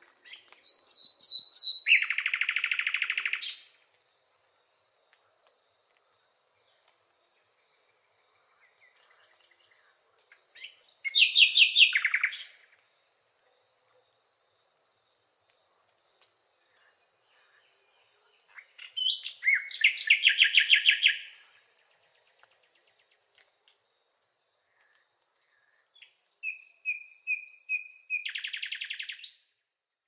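A songbird singing the same short phrase four times, several seconds apart. Each phrase is a few high repeated notes followed by a lower rapid trill.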